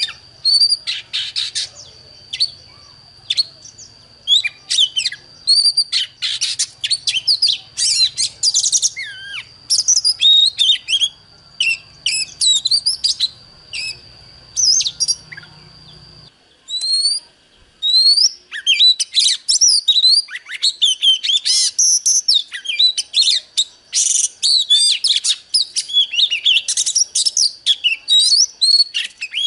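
Oriental magpie-robin singing loudly: a fast, varied run of sweet whistles, trills and chirps with hardly a pause. A steady high whine sits under the song and stops about halfway, with a short lull in the singing just after.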